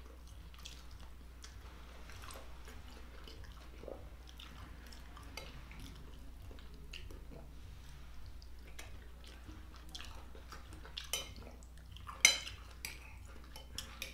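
Metal fork clinking and scraping against a glass bowl of food during eating, with a few sharper clinks near the end.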